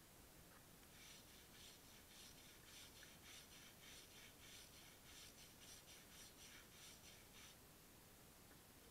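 Wire brush scrubbing the weld beads on a steel trailer hitch: faint, even back-and-forth scratching strokes, about three a second, that stop about a second before the end.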